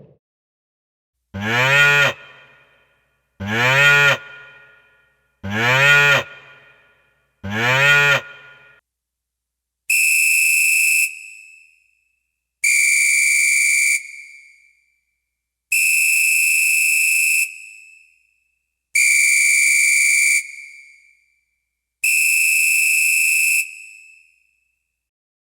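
Four short cow moos in a row, each rising at the start and then levelling off. They are followed by five steady, high-pitched whistle blasts of about a second and a half each, evenly spaced.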